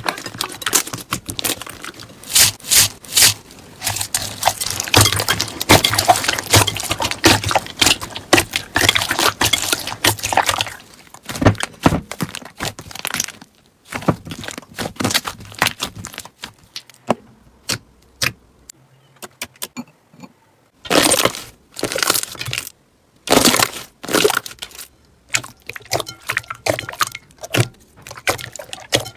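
Slime being squeezed and pressed by hand, giving dense crackling and popping. The crackling is thick for the first ten seconds or so, then thins out into scattered clicks with a few loud bursts of crackle later on.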